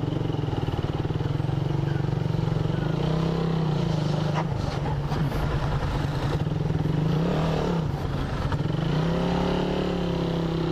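Suzuki Raider 150R's single-cylinder four-stroke engine on its stock exhaust, running steadily under light throttle while the bike is ridden. Its pitch dips and rises a few times as the throttle is eased off and reopened.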